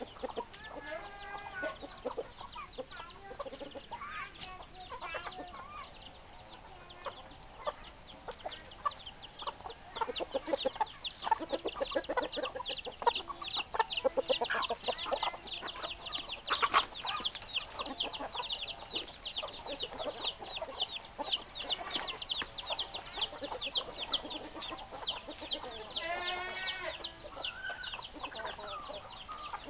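Chickens clucking and calling. Through the middle, a dense run of rapid, high chirping rises over the clucks and is loudest there.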